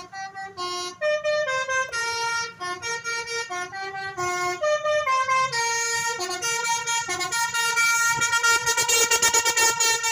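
Bus 'telolet' horn, a multi-tone musical air horn, playing a quick tune whose notes change every fraction of a second. It gets louder about halfway through and breaks into fast pulsing notes near the end.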